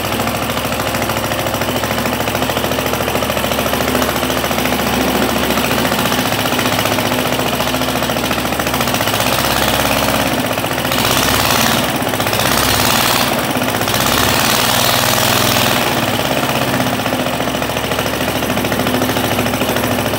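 Suffolk Colt lawnmower's small single-cylinder petrol engine running steadily with a fast, even beat, running really nice after its restoration.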